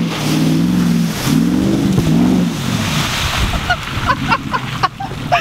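Lifted Dodge Ram pickup's engine revving hard, its pitch rising and falling, as it charges into a mud pit, then a big splash of muddy water about two and a half seconds in that drenches the camera. Short excited voice sounds near the end.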